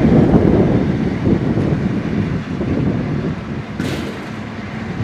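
FV434's Rolls-Royce K60 multi-fuel engine idling, a heavy, rough low rumble. A brief sharp noise cuts in a little before the end.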